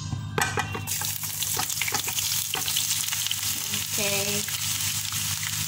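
Chopped onion tipped off a wooden board into hot oil in a frying pan: the oil starts sizzling about half a second in and keeps on, with a few knocks as the board and onion pieces land.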